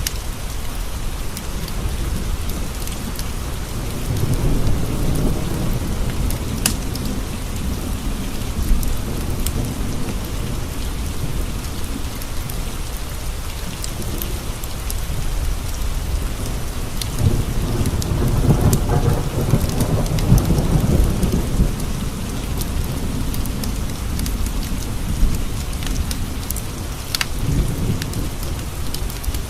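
Steady rain on window panes with rolling thunder: a low rumble swells a few seconds in, and a longer, louder one builds and fades around the middle. Scattered sharp ticks sound over the rain throughout.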